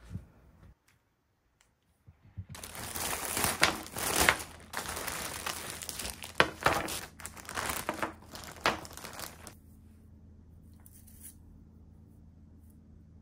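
Shopping packaging crinkled and rustled by hand as purchases are unwrapped, in uneven bursts that start about two and a half seconds in and stop a few seconds before the end.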